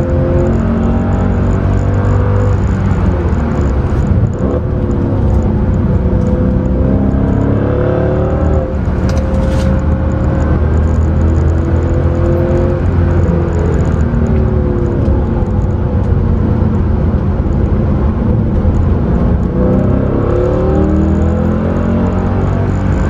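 Mercedes C63 AMG's 6.2-litre V8 heard from inside the cabin as it is driven hard on track. Its pitch rises as it accelerates through the gears and falls as it slows for corners, several times over, above a steady rumble of tyre and road noise.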